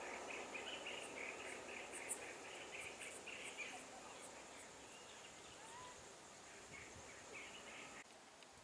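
Faint insect chirping: a pulsing run of short chirps, a few a second, over a thin steady hiss, thinning out midway and returning briefly near the end.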